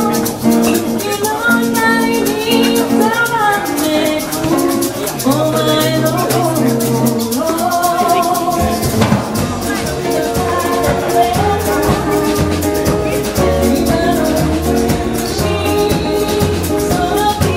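Live band music: a nylon-string classical guitar and a shaker keeping a steady rhythm under a melody line. Low bass notes come in about halfway.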